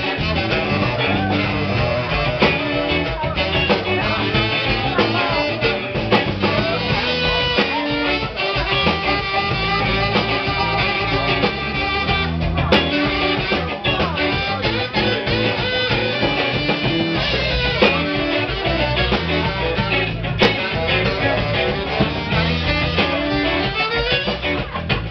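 A live blues-rock band playing loudly: electric guitar over bass guitar and a drum kit keeping a steady groove.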